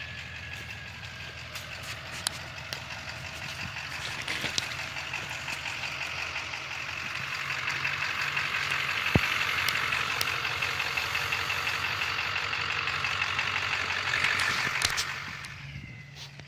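Ford F-250 pickup's engine running as it crawls past towing a fifth-wheel travel trailer, with tyres crunching and popping over gravel and rocks. It grows louder as the truck comes alongside, then drops away sharply about a second before the end.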